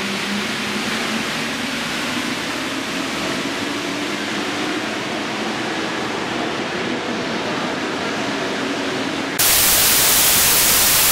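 Steady rushing noise of a metro station platform with a faint wavering hum. About nine seconds in it cuts abruptly to loud, even television-static hiss.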